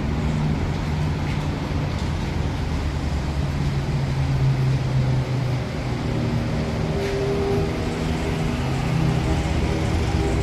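A motor or small engine running at a steady speed, a continuous hum that wavers slightly in pitch, with a few faint ticks.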